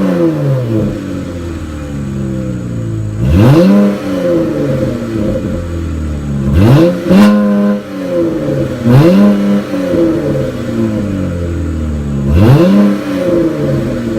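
Dodge Challenger GT's 3.6-litre V6 through a Flowmaster American Thunder cat-back exhaust, idling with quick blips of the throttle about every three seconds. Each blip rises sharply and drops straight back to idle, one of them a quick double blip.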